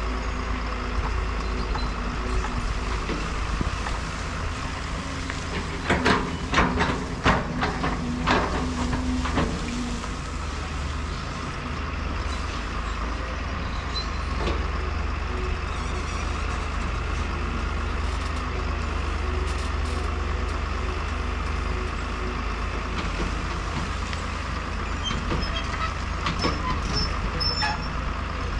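Caterpillar tracked excavator's diesel engine running steadily, with a run of sharp knocks about six to nine seconds in.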